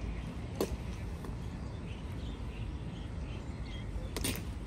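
Steady background hubbub with a sharp click about half a second in and a quick run of clicks near the end.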